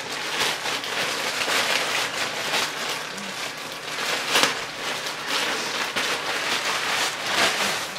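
White plastic poly mailer being torn open by hand: continuous crinkling and rustling of the plastic with sharp crackles, and two louder rips about halfway through and near the end.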